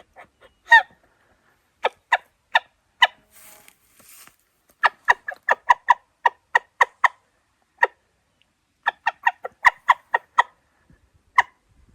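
A hunter's turkey call giving runs of short, sharp hen-turkey yelps: a few spaced notes, then a quick run of about ten, a pause, and another run. This is soft first calling with a short-range call to draw a gobbler.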